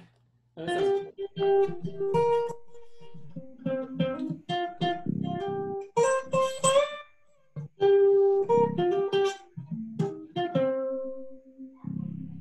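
Guitar playing an improvised single-note melody: plucked notes one after another with short pauses, and a brief slide upward about halfway through.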